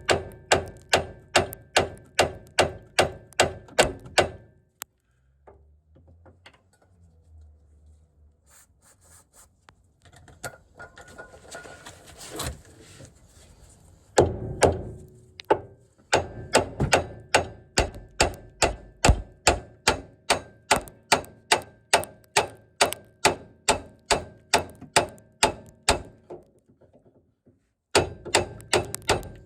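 Hammer blows on the steel front hub and suspension of a car, about three strikes a second, each with a short metallic ring. The blows come in runs: one at the start, a long stretch of quieter scraping and handling from about five to fourteen seconds, then steady hammering again with a short break near the end.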